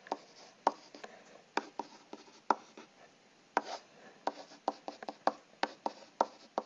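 Stylus tapping and scratching on a tablet's writing surface during handwriting: a string of sharp, irregular clicks, about two or three a second, with faint scratching between them.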